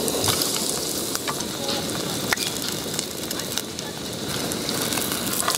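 A breaded cheese pork cutlet deep-frying in hot oil in a small pot: a steady crackling sizzle with small pops, starting as the cutlet goes into the oil.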